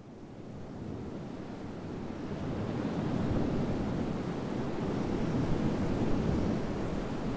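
Steady rushing ambience of ocean surf and wind, fading in over the first three seconds and then holding level.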